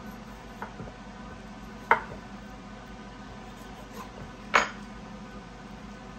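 A kitchen knife knocking on a wooden cutting board: two sharp knocks, about two seconds in and again just before five seconds, the second the loudest, with a few fainter taps, over a steady background hum.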